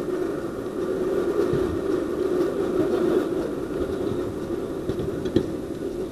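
Steady machine hum, even and unbroken, with a single sharp knock about five seconds in.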